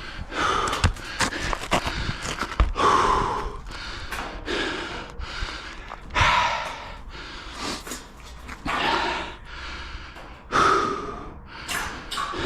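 Heavy, laboured breathing close to the microphone, a long breath every couple of seconds, from a roofer worn out by hauling and placing metal panels on a steep pitch, with a few light knocks of handling between breaths.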